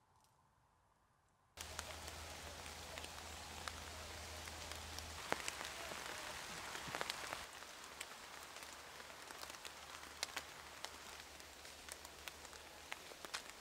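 Rain falling in woodland: a steady patter with single drops ticking sharply on leaves. It starts abruptly about a second and a half in after near silence, and eases slightly about halfway through.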